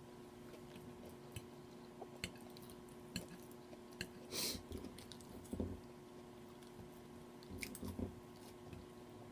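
A person chewing food close to the microphone, with scattered soft crunches and mouth clicks, the loudest about four and a half seconds in. A faint steady hum runs underneath.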